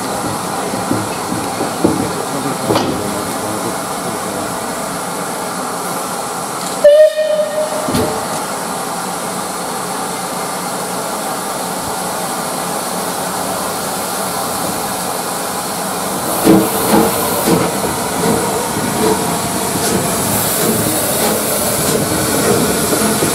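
Steam locomotive off to one side hissing steadily, with one short, loud blast on its whistle about seven seconds in. From about sixteen seconds in come irregular exhaust puffs, and the sound grows louder as the locomotive draws near.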